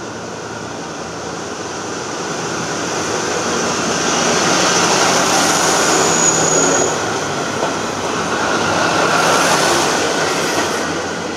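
Kominato Railway KiHa 200 diesel railcar pulling out and passing close by: engine running under power and wheels rolling on the rails, growing louder as it comes past, with a brief high wheel squeal about halfway through.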